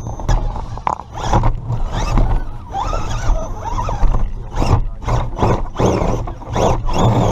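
Redcat Gen7 Pro RC rock crawler's electric motor and drivetrain whining in short, irregular throttle bursts, heard up close from a camera mounted on the truck itself.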